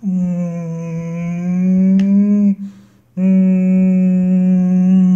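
A person's voice imitating the game-show wrong-answer buzzer: two long, flat 'ehhh' drones with a short break between them, marking a strike.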